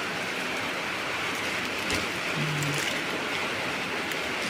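Steady hiss of rain falling, with a brief low hum about two and a half seconds in.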